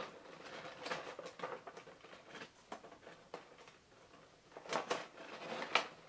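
Long kitchen knife scraping and cutting at a clear plastic package, with scattered plastic clicks and crackles and a quick run of sharper clicks near the end.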